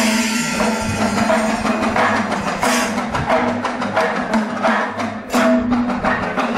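Percussion-led music: fast, dense drum strokes over a steady held tone.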